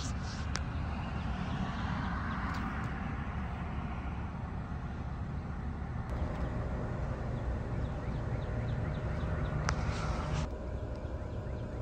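Outdoor ambience: a steady low rumble, with faint bird chirps in the second half.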